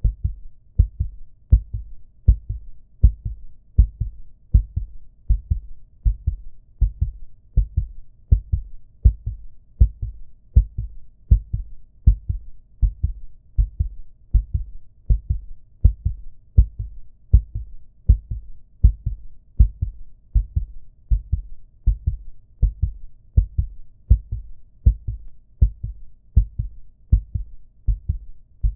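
Recorded human heartbeat sound effect: a steady, even rhythm of low lub-dub double thumps that repeats without change.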